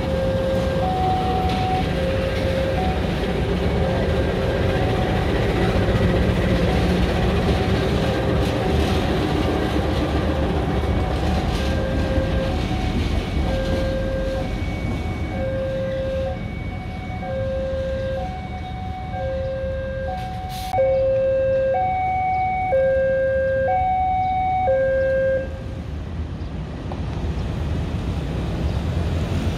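Diesel-electric locomotive (KAI CC 206) engine running with a steady low rumble, over a two-tone warning signal that alternates high and low about once a second. The signal grows louder in the second half and stops a few seconds before the end.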